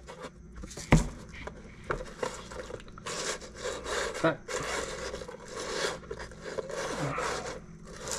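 Hands rubbing seasoning into raw soft-shell crabs on a plastic cutting board: a run of soft scraping and rubbing noises, with one sharp knock about a second in.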